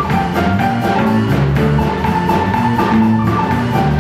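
Live jazz band playing an instrumental passage between the vocal lines, with bass, drums and pitched melody notes over a steady beat.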